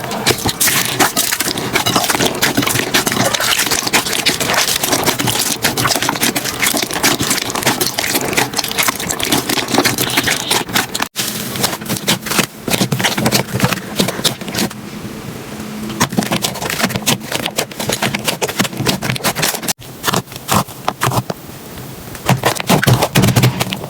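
Crunchy slime being squeezed and pressed, giving a dense run of crackles and pops. The sound breaks off sharply twice, and is softer for a stretch in the middle.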